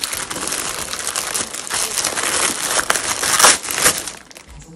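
Thin plastic bread bag crinkling and rustling as hands open it, loudest about three and a half seconds in and dying down near the end.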